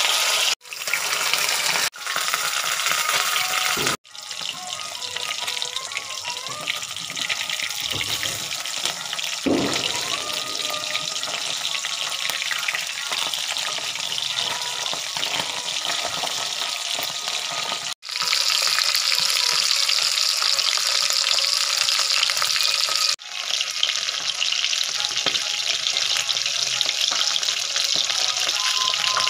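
Two whole common carp sizzling in hot oil in a pan: a steady, crackling frying hiss. It breaks off sharply several times and is louder in the last third.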